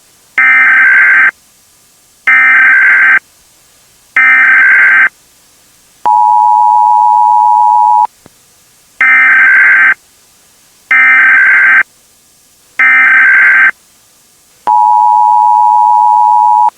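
Emergency Alert System header signal: three short, buzzy digital data bursts about two seconds apart, followed by the steady two-tone attention signal for about two seconds. The whole sequence then plays once more.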